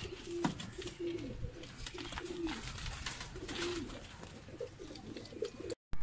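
Gulgasht pigeons cooing: a run of short low coos, about two a second, over scattered clicks and rustling.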